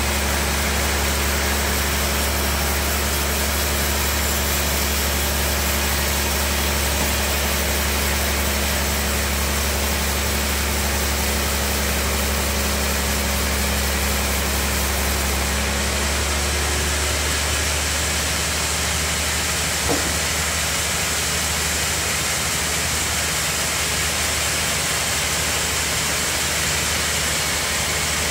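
Large band sawmill running steadily, its band blade sawing through a big log with a continuous low hum and hiss. About halfway through, part of the low drone drops away and the sawing noise carries on.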